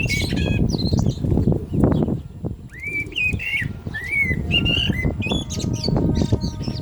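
Common blackbird singing: several short fluty, warbling phrases that rise and fall in pitch, with a pause of over a second between the first phrase and the rest. A loud, uneven low rustling rumble lies under the song throughout.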